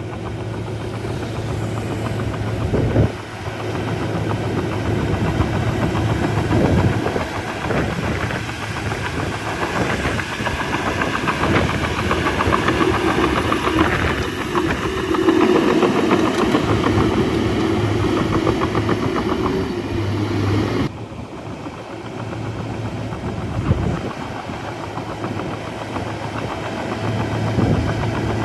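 Shantui crawler bulldozer's diesel engine running under load, with a fast steady clatter from its steel tracks and a few heavier knocks.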